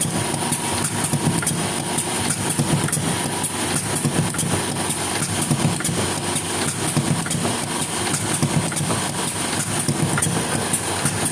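Engine-driven machine running steadily, with a fast, even clatter over the engine noise and a constant high whine.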